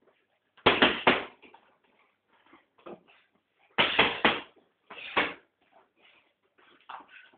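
Boxing gloves thudding into a hanging heavy punching bag in quick combinations: three hard punches about a second in, three more near four seconds, a pair just after five seconds, and a few lighter hits in between.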